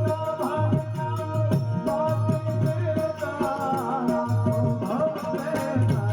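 Gujarati folk music: a steady percussion beat under a sustained drone note, with a wavering melody line over it.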